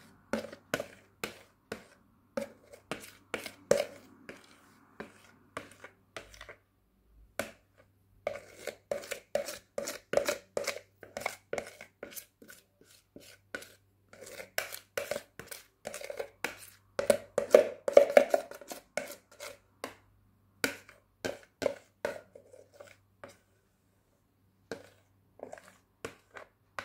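Quick knocks and taps of a plastic pitcher against a plastic tub as thick chocolate pudding is knocked out of it, about three a second in runs with short pauses.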